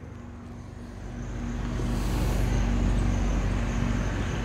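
Low outdoor background rumble, swelling over the first two seconds or so and then easing a little, with a faint steady high-pitched hum above it.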